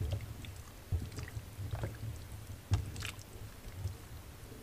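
A metal spoon scrapes thick cream-style corn out of a tin can into a steel pot, with wet squishy plops and a few sharp clinks of spoon on can and pot, over a low steady rumble.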